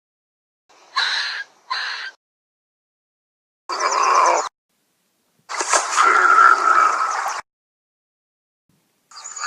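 A series of short, separate, breathy, hissing cartoon critter sound effects with dead silence between them: two quick ones about a second in, a longer one near four seconds, and the longest around six seconds with a squealing tone in it. Another starts just before the end.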